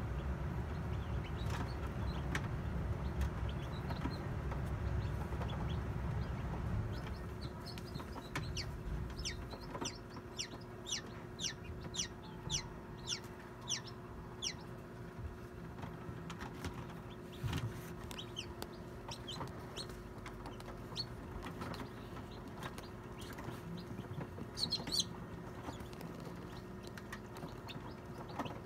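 Newly hatched chick peeping in an incubator: short, high peeps that fall in pitch, about two a second and thickest in the middle. Under them runs a steady hum, with a low rumble for the first nine seconds or so.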